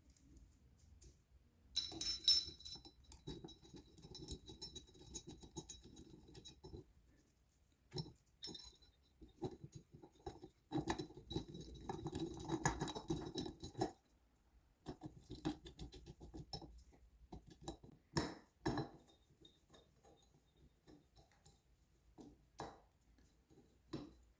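Intermittent small metallic clicks, scrapes and jingles of bolts and a flywheel puller being handled and threaded into a motorcycle flywheel, with short quiet gaps and a few sharper knocks.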